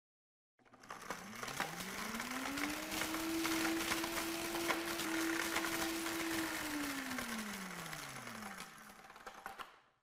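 Royal Prestige Power Blender's 1500-watt motor spinning up, running at full speed and winding down, its whine rising for about two seconds, holding, then falling. Throughout, a smartphone in the jar is smashed and ground to powder, a dense crackling rattle of fragments against the jar that stops near the end.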